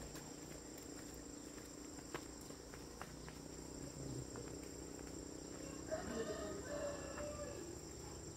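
Insects keep up a steady high-pitched drone. A few faint ticks sound in the first half, and about six seconds in there is a brief faint call.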